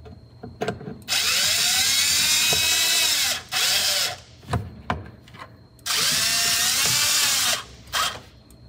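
Red cordless drill pressed against a panel, running in two long pulls of about two seconds and one short burst, its pitch rising and falling as it works under load, with a few light knocks in between.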